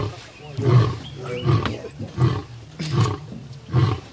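Male lion roaring: a rhythmic series of short, deep grunting pulses, roughly one every three-quarters of a second.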